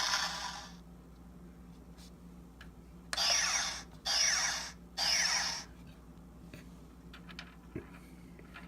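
Toy Millennium Falcon's electronic sound module playing through its small speaker: a sound effect cuts off just under a second in, then three short laser-blast zaps, each falling in pitch, about a second apart.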